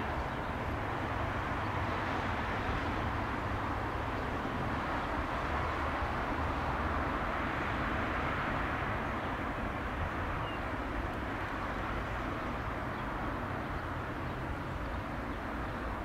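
Airbus A319 jet engines running at low power on the ground, a steady rushing sound over a low rumble that swells slightly about halfway through.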